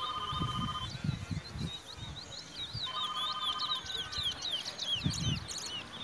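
Caged Trinidad bullfinches singing a rapid twittering song of quick chirps that goes on throughout. Two short electronic beeps, each about a second long, sound at the start and again about three seconds in.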